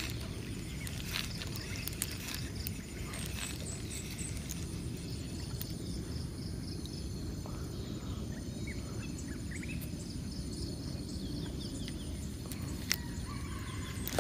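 Lakeside outdoor ambience: a steady low rumble with faint high chirps and a pulsing trill from birds or insects in the middle stretch, and a few sharp clicks.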